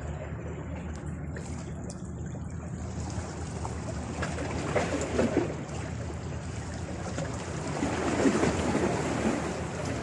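Sea waves washing against a rocky shore, surging louder twice, over steady wind noise on the microphone.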